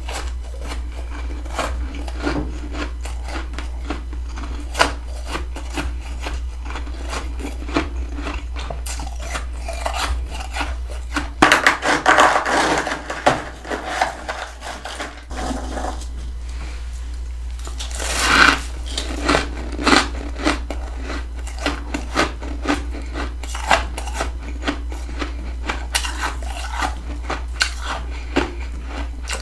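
Freezer frost being scraped and crunched: a run of small crisp clicks and rasps, with louder, denser bursts of crunching about twelve and eighteen seconds in, over a steady low hum.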